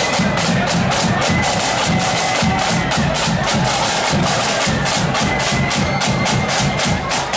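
Loyalist marching flute band playing: flute melody over rapid snare drumming and a bass drum.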